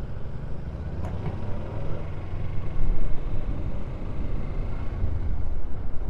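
Motorcycle engine running while riding, a steady low rumble.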